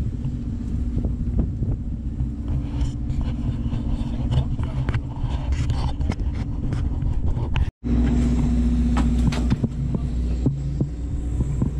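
A docked sportfishing boat's engine idling: a steady low rumble with a constant hum, with scattered knocks and footsteps on deck and dock. The sound drops out for an instant about two-thirds of the way through.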